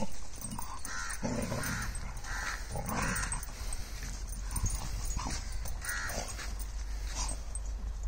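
Two dogs fighting, with a run of short, harsh snarling calls about every half second to second and low growling under some of them.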